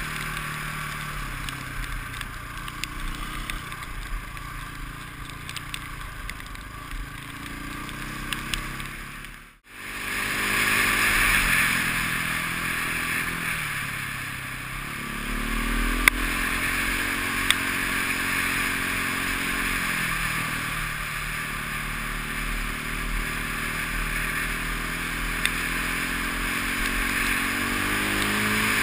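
KTM enduro motorcycle engine under way, its pitch rising and falling as the rider opens and closes the throttle, over a steady rushing noise. The sound cuts out for an instant about ten seconds in and comes back louder.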